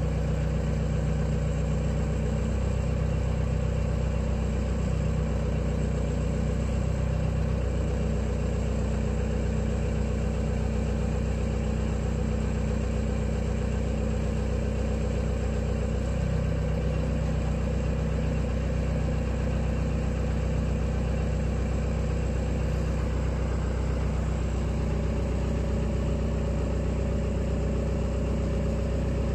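SKG940A crawler drilling rig's engine running steadily at idle, an even low hum; a somewhat higher note joins in near the end.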